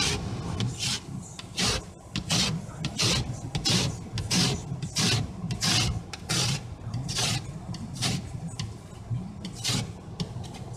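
Plastic ice scraper scraping frost off a car windshield, heard from inside the car through the glass: rhythmic rasping strokes, about one and a half a second.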